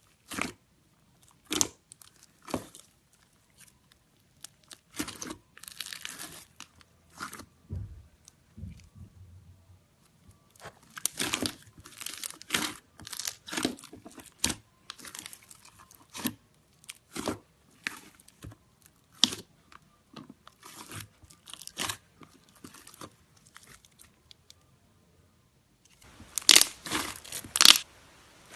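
Slime being squished and stretched by hand, giving irregular sharp crackles and pops, with a louder, denser run of pops near the end.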